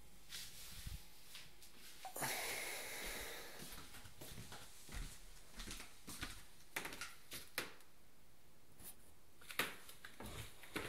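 Irregular light knocks and clicks, like handling and footsteps in a small wooden room, with a short rush of hissy noise about two seconds in that fades away.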